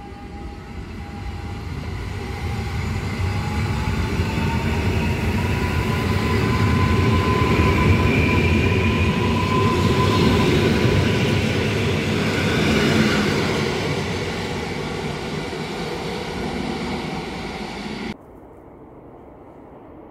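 An EN57 electric multiple unit running past: a rumble of wheels on the rails with a thin whine that rises slightly in pitch, swelling to a peak and then fading. Near the end it cuts off sharply, leaving a faint steady outdoor background.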